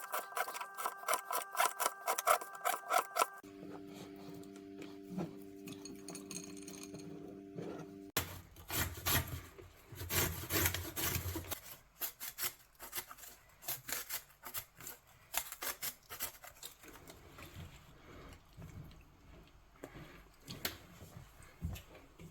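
Knife slicing through a raw fennel bulb on a cutting board: a long run of quick crunchy cuts with rasping strokes. Faint steady tones sit under the first few seconds.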